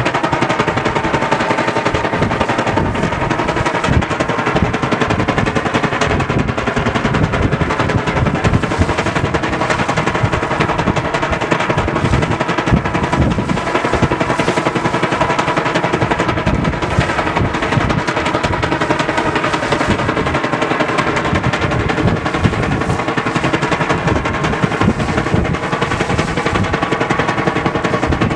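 Strong wind buffeting the microphone, with a loud, steady rattling buzz from the Tsugaru kite straining on its line in the gale.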